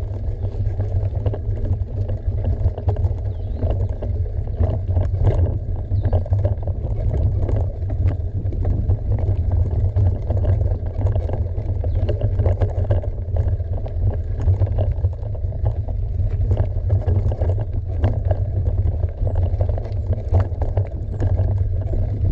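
Mountain bike rolling down a dirt trail: a steady low rumble of wind buffeting the camera microphone, with frequent small knocks and rattles from the tyres and bike over the ground.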